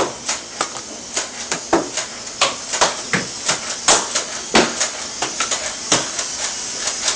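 Nerf dart blaster being fired: a rapid, irregular series of sharp clicks and knocks, about twenty in all.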